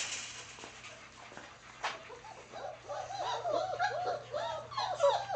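Four-week-old German Shepherd puppies whimpering and yipping in a quick run of short, high calls that begin about halfway through and grow louder toward the end. A brief noise comes at the very start.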